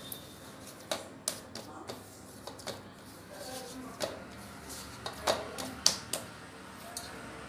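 Jowar (sorghum) flour dough being kneaded by hand with hot water in a steel plate: irregular slaps and knocks of hand and dough against the metal, a few louder strokes about four, five and six seconds in.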